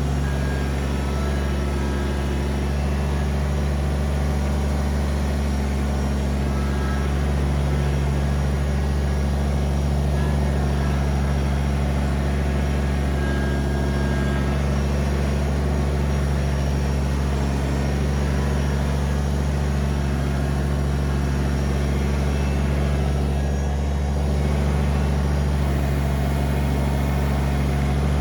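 Kubota BX23S compact tractor's three-cylinder diesel engine running at a steady speed, with no change in pitch or level.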